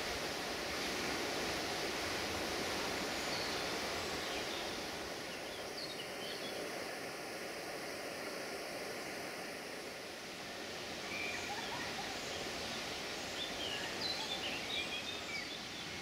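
Steady outdoor ambience: an even rushing noise with birds chirping now and then, a little more often near the end.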